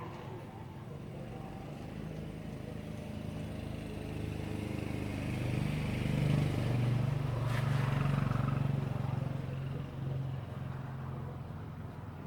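A motor vehicle engine running in the background. It grows louder in the middle, as if passing close by, then fades.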